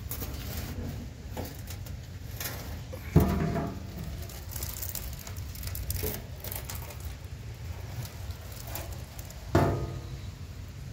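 Thin sheet steel knocked twice, about six seconds apart, each knock sharp and ringing briefly, over a steady low rumble of handling noise.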